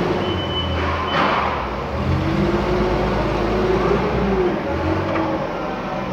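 Gas-powered forklift engine running, its pitch rising and falling as it manoeuvres and lifts a load. A reversing alarm beeps intermittently through the first second, with a knock about a second in.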